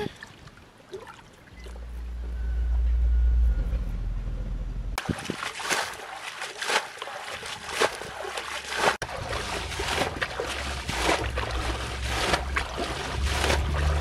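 Hands splashing and sloshing in shallow muddy ditch water while feeling for fish, many short splashes in quick succession from about five seconds in. Before that, a low rumble.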